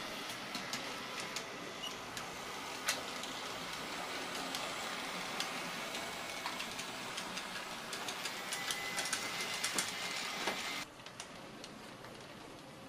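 HO scale model trams running on track: the steady hiss and whirr of small electric motors with many sharp clicks from wheels on the rails. The sound cuts off abruptly about two seconds before the end, leaving a quieter background.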